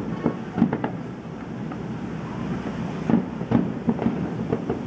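Aerial firework shells bursting in the distance: a run of sharp bangs, bunched in the first second and again from about three seconds in, over a steady low rumble.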